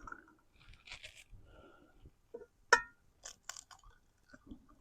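A chicken egg cracked on the edge of a skillet: one sharp tap with a brief metallic ring a little under three seconds in, followed by a few fainter shell clicks.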